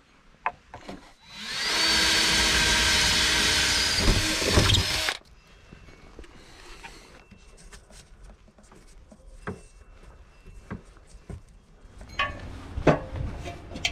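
Power drill running for about four seconds, its pitch rising as it speeds up and then cutting off suddenly, most likely boring a hole for a camera cable. Afterwards come faint clicks and rustles of handling, and a few sharper knocks near the end.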